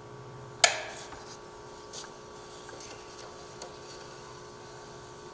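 One sharp click a little over half a second in, followed by a few faint ticks, over a steady faint hum.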